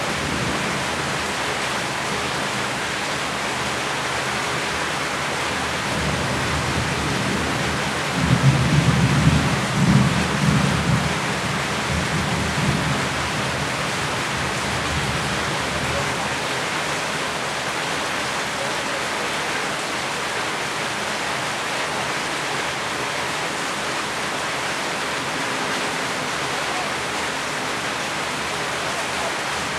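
Steady rain, with a low rumble of thunder rolling in about eight seconds in and dying away over the next few seconds.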